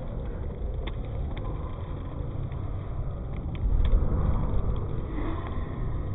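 A man biting into and chewing a mouthful of burger, with small mouth clicks, over a low steady rumble that swells louder for a couple of seconds about four seconds in.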